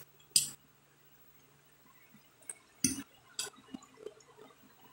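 A metal fork clinks against a glass plate a few sharp times, followed by small soft eating noises as a boiled egg is bitten.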